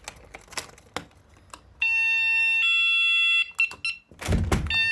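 An electronic two-note tone, a higher steady note stepping down to a lower one, sounding twice; a dull thump comes just before the second. A few faint clicks come before the first.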